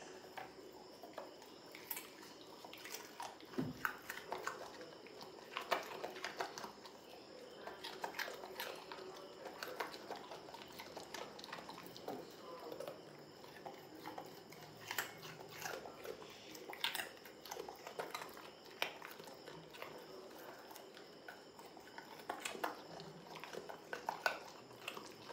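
Labrador retriever chewing and crunching pieces of carrot, a run of irregular crisp crunches.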